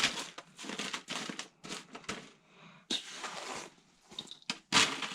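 A bag of granulated sugar being handled: irregular crinkling and crunching rustles, the sugar shifting in the bag.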